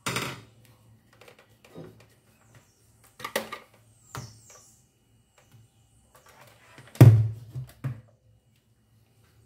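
Hand mixer's metal beaters knocking against a glass bowl of stiff whipped cream: several separate knocks, the loudest and deepest about seven seconds in, followed by a lighter one.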